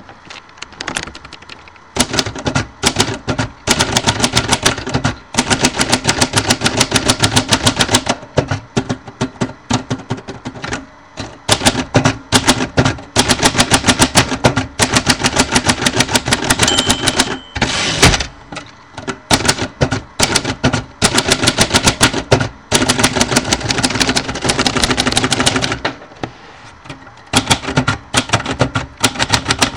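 Typewriter keys clacking in fast, dense runs, broken by a few short lulls, with a brief ringing tone about halfway through.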